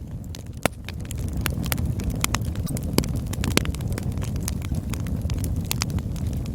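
Campfire burning: a steady low rumble of flame with irregular crackles and sharp pops of burning wood, the loudest pops about two-thirds of a second in and around three and three and a half seconds in.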